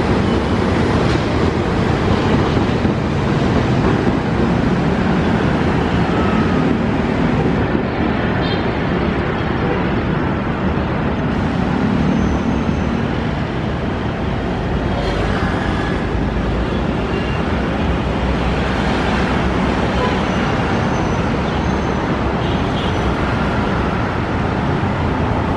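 CC206 diesel-electric locomotive running as it moves through the station tracks, a steady rumble mixed with dense outdoor noise.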